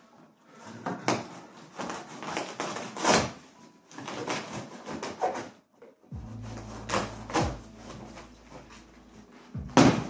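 Cardboard packaging of a fridge-freezer being handled: a run of scrapes, rustles and knocks, with a low steady hum coming in about halfway and a sharp knock near the end.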